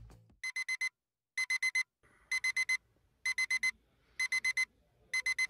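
Digital alarm clock beeping in quick groups of four short, high beeps, about one group a second, with short gaps between groups.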